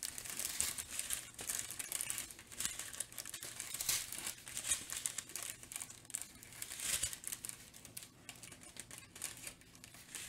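Small plastic bags of diamond painting drills crinkling, handled close to the microphone.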